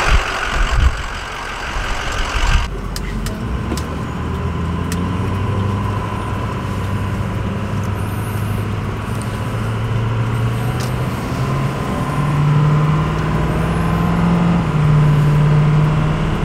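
A truck engine running with a steady low drone. Its pitch steps up about ten and twelve seconds in, as the truck gathers speed. A few sharp clicks come a few seconds in.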